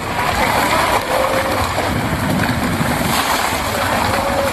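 Landslide: a large mass of earth and rock breaking off a hillside and pouring down onto a road, a steady rushing rumble of falling debris.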